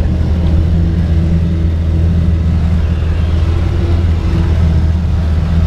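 Engine of an off-road vehicle running while driving, heard from inside the cab: a steady low drone.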